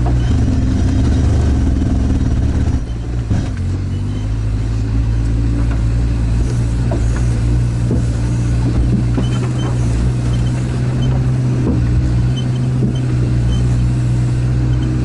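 All-terrain vehicle's engine running steadily as it drives, heard from inside its cab as a loud low drone. There is a brief dip about three seconds in.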